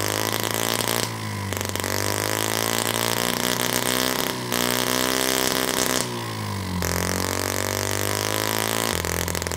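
M12 miniature single-cylinder four-stroke gasoline engine running flat out on nitromethane with pure oxygen fed into its carburetor, screaming at very high revs. Its pitch climbs over the first few seconds, holds, then drops away about seven seconds in.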